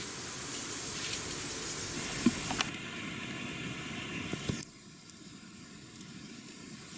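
Broth inside a green bamboo tube heating over a wood fire, steam hissing and liquid sizzling where it seeps onto the hot bamboo, with a few sharp crackles from the fire. The hiss drops suddenly quieter about two-thirds of the way through.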